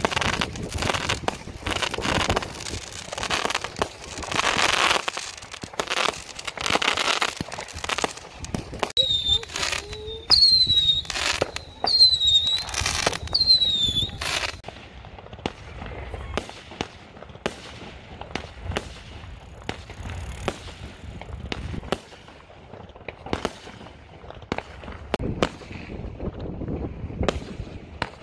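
Fireworks going off overhead in a string of bangs and crackles. In the middle come four whistling rockets, each a high whistle falling slightly in pitch. After that the bangs grow sparser and fainter.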